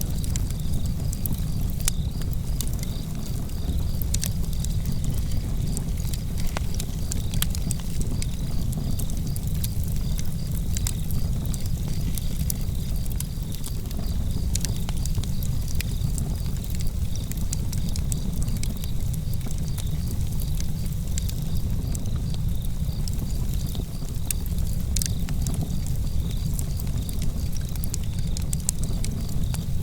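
Wood fire burning in a fireplace, crackling with frequent small sharp pops over a steady low rumble.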